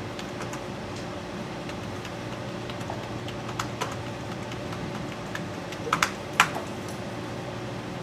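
Typing on a computer keyboard: scattered key clicks as a web search is entered, with a few louder clicks about six seconds in. A steady low hum runs underneath.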